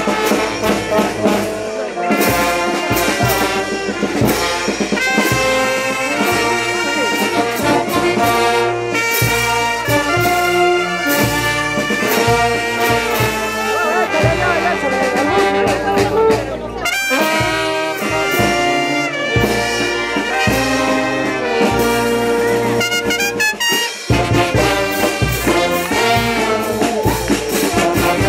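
Brass band playing a lively tune: trumpets, trombones and sousaphones together, loud throughout.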